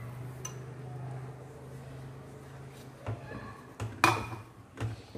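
A utensil knocking and clinking against a cooking pot as rice flour is tipped into just-boiled water and stirred into dough. There are a handful of sharp clinks, the loudest about four seconds in, over a low steady hum.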